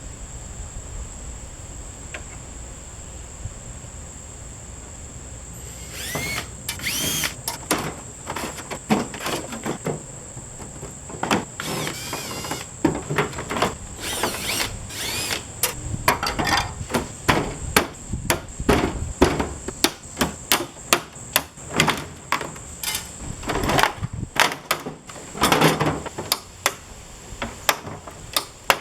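Metal parts being worked on by hand: irregular clanks, scrapes and short squeals, starting about six seconds in and continuing in a busy, uneven run.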